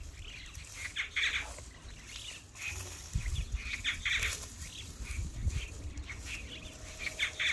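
Hands scraping and pressing dry, stony soil around a newly planted sapling, with dry grass rustling: a few short scratchy crunches spread over several seconds.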